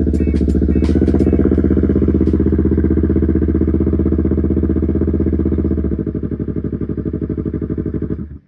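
Motorcycle engine idling steadily with an even, rapid pulsing beat, cutting off abruptly near the end.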